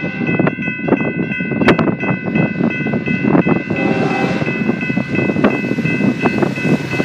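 A train rolling past with its wheels knocking repeatedly over rail joints, under a steady high-pitched ringing tone.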